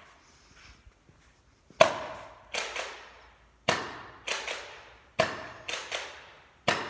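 Nerf Rival Kronos spring-powered pistols firing foam balls: four sharp shots about one and a half seconds apart, the first about two seconds in. Each of the first three shots is followed by two lighter clacks.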